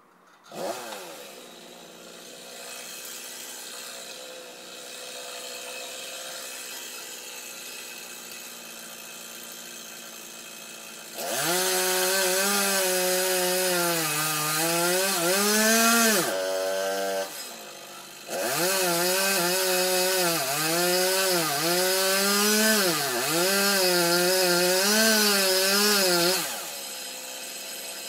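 A two-stroke chainsaw comes on just after the start and runs at a low, steady speed. It then gives two long stretches of full throttle, about five and eight seconds long, cutting into a tree trunk, its pitch sagging and recovering again and again as the chain bites into the wood. Between and after the cuts it drops back to idle.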